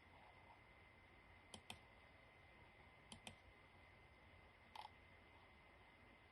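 Faint computer mouse clicks, mostly in quick pairs, three times about a second and a half apart, against near silence.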